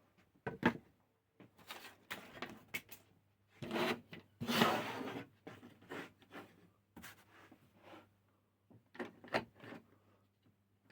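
Scattered clicks and knocks with a scrape about four seconds in: the thin-strip rip jig and fence on a table saw being handled and adjusted by hand, with the saw switched off.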